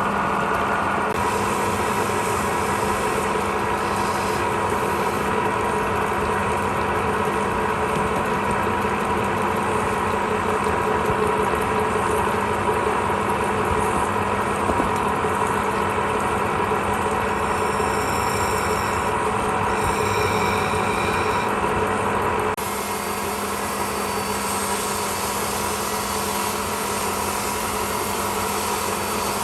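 Wood lathe running steadily with a constant motor hum. The sound shifts abruptly and drops slightly in level about three-quarters of the way through.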